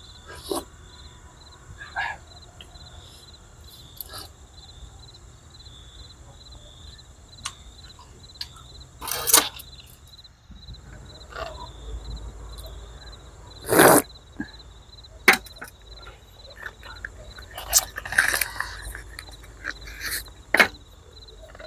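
Night insects chirping in a steady, high, pulsing trill. Over it come scattered short clicks and knocks of a spoon against a metal camping pot.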